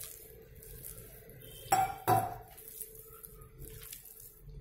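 Glass bowl knocking and clinking twice, close together about two seconds in, while a hand kneads soft wheat-flour dough in it; a faint steady hum runs underneath.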